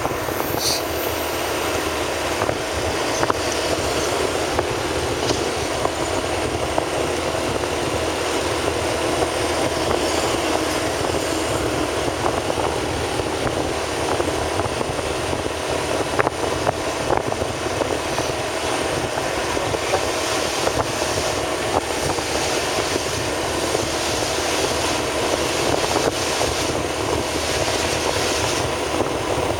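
Steady engine and road noise of a vehicle being driven, heard from on board.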